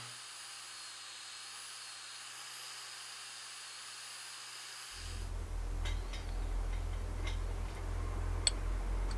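Small electric disc sander running with a steady high whine and a low motor hum as a lure-mould block is pressed flat against the spinning disc. About five seconds in it cuts to a louder low rumble with a few light clicks.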